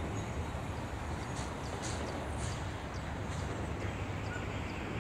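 Steady low rumble of distant city traffic, with short faint high chirps recurring a few times a second.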